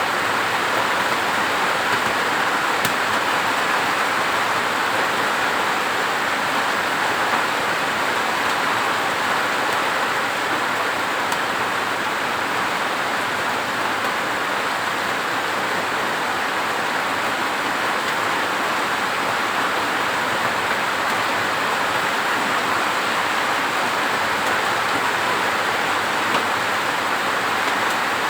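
Steady rain, an even hiss that holds level throughout, with a few faint ticks.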